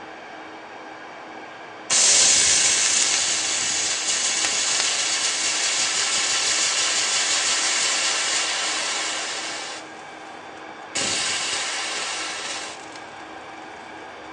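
Water sizzling on a hot electric hotplate: a loud hiss starts suddenly about two seconds in and slowly fades over some eight seconds, then a second, shorter hiss comes and fades away near the end.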